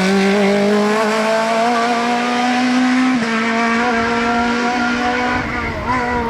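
Race car engine held at high revs under hard acceleration, its note climbing slowly in pitch. The note dips briefly about three seconds in and again near the end, as at gear changes.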